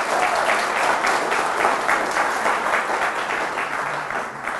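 Audience applauding: many people clapping steadily, fading away near the end.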